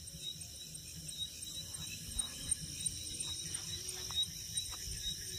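Crickets chirping steadily in a high, continuous trill, with a faint low rumble and a few soft knocks underneath.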